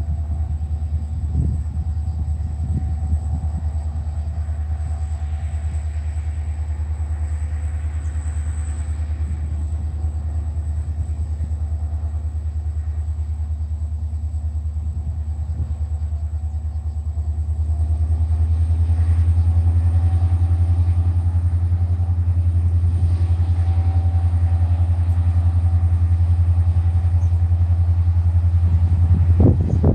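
Diesel freight locomotive with an EMD 16-645E3C two-stroke V16 working hard up a steep grade, heard before it comes into view: a steady low engine drone that grows louder about two-thirds of the way through. Wind buffets the microphone near the end.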